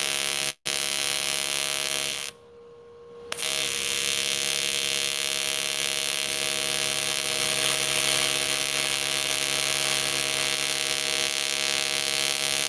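Miller Dynasty 210 AC TIG arc on aluminium tube, a steady buzz set by its 70 Hz AC frequency. The arc cuts out for an instant about half a second in, then drops away for about a second around two seconds in before it strikes again and runs on.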